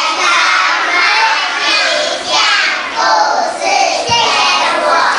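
Many young children's voices together, calling out loudly in short phrases about a second apart.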